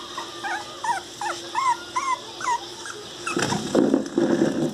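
Newborn pinscher puppy crying: a quick run of short, high-pitched squeaky whimpers, several to the second, each rising then falling, the distress cry of a puppy missing its mother. Near the end the cries give way to a louder rustling as the puppy is handled.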